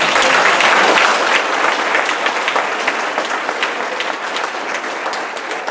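Audience applauding, loudest at the start and slowly dying down into scattered claps.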